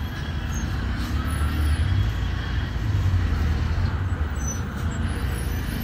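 Road traffic: a steady low rumble of vehicles' engines and tyres.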